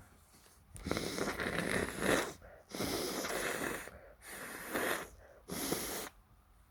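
A person's sneezing bout: four loud, breathy bursts of air through the nose and mouth, one after another, with short breaks between them.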